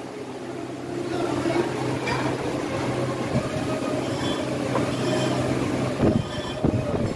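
Wheel-repair lathe running with a steady motor hum and light metallic rattling while an alloy rim is mounted on it, with a few sharper knocks near the end.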